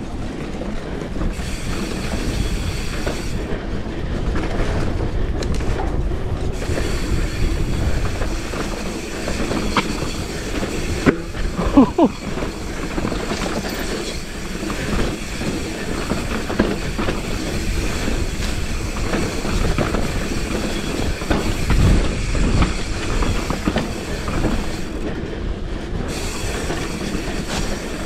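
Commencal Clash mountain bike descending a dirt trail: rolling tyre noise, the chain and frame rattling over bumps, and wind rush on the microphone, with a short squeal about twelve seconds in and a heavier jolt a few seconds before the end.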